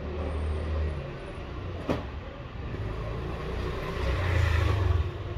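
Low rumble of street noise that swells twice, the second time with more hiss, and one sharp click about two seconds in.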